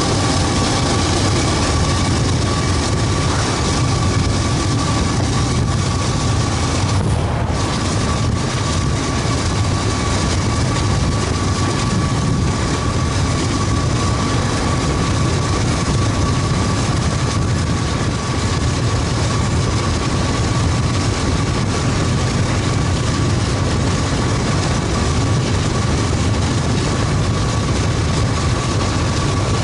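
Steady running noise of a vehicle with its engine on, heard from inside the cabin: an even low rumble and hiss, with a thin high whine held throughout.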